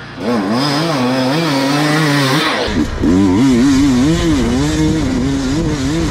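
Husqvarna 300 two-stroke enduro motorcycle engine revving up and down in quick throttle blips, about two a second, as the bike works over rocky ground. The sound gets heavier in the low end about two and a half seconds in.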